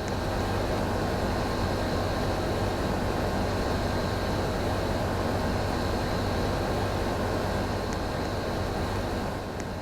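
DELF inverter air conditioner running: a steady rush of air with a thin high whine and a low hum, easing off near the end.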